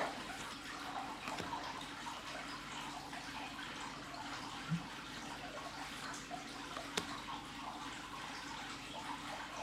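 Faint handling of Magic: The Gathering cards: a soft, steady rustle with a few light ticks and one sharp click about seven seconds in.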